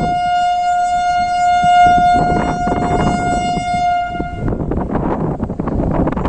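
Train horn sounding one long steady blast at a single pitch over the rumble of a running train; the horn cuts off about four and a half seconds in, leaving the rumble and wind noise.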